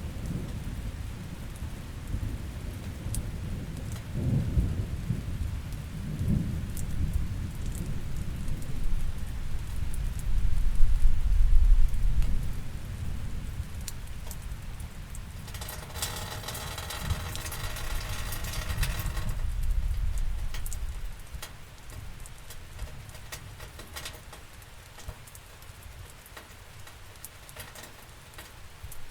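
Steady rain with rolling thunder: low rumbles swell and ebb, loudest about eleven seconds in, then die away about two-thirds through, leaving the rain alone.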